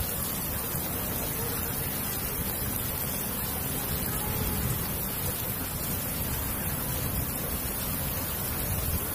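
Rain falling steadily on a concrete rooftop: an even, unbroken hiss.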